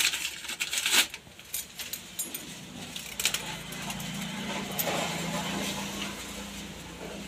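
Motorcycle clutch plates, friction and steel, clinking against each other as the stack is handled, with several sharp clicks in the first few seconds. A low steady hum runs behind them from about halfway in.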